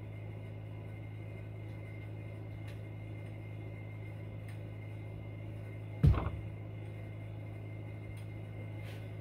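A steady low electrical hum, with one dull thump about six seconds in.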